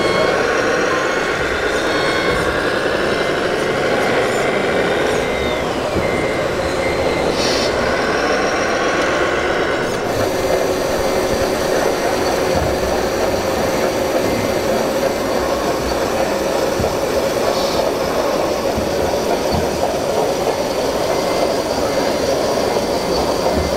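Small electric motors of RC scale model trucks whining over a constant hall din, their pitch gliding up and down. About ten seconds in the sound changes abruptly to a steady whine as the tipper trailer's bed lifts to dump its load of soil.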